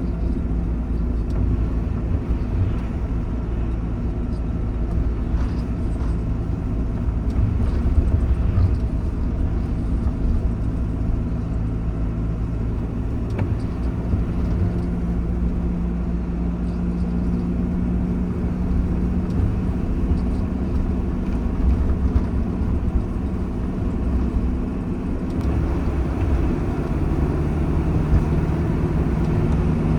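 Van engine and road noise heard from inside the cab while driving up a mountain road, a steady low rumble. The engine note shifts about halfway through and again near the end.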